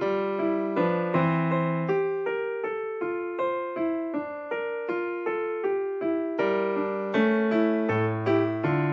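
Classical piano music: a steady run of single notes over chords, with deeper bass notes joining in the second half.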